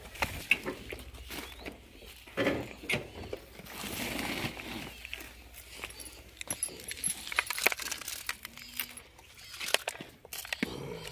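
Handling noise from plastic feed tubs: scattered knocks, scrapes and clicks, with a stretch of rustling about four seconds in as dry feed is moved.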